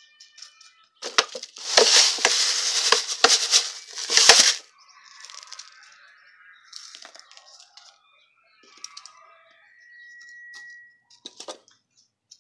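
Fine gravel crunching and rattling as it is spread and pressed by hand over the soil in a plant pot, with a dense crackling run of about three seconds near the start, then lighter scattered clicks.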